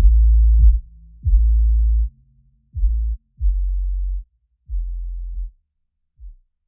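Background electronic music: a deep bass line of short held notes, each with a sharp attack and silent gaps between them, that thins out and stops near the end.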